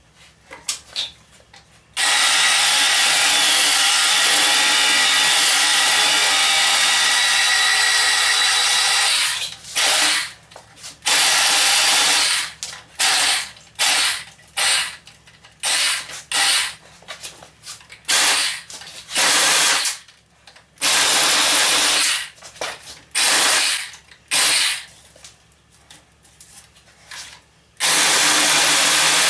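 Cordless power tool motor running, first in one long steady run of about seven seconds, then in many short stop-start bursts, with a long run again near the end.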